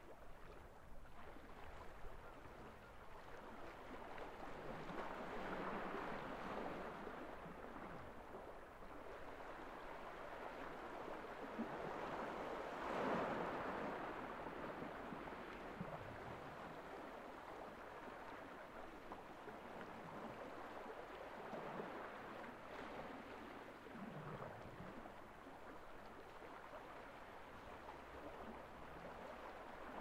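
Gentle sea waves washing in on a gravel beach, a steady wash that swells and eases, loudest a little before halfway.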